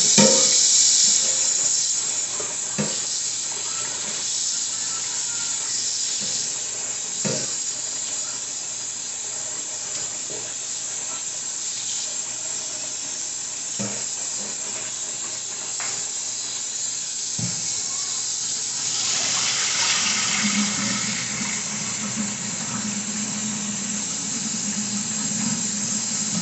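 Kitchen tap running hot and cold water into a sink full of turkey wings, with a few light knocks from the meat and sink. About twenty seconds in, the flow grows a little louder and a steady low hum joins it.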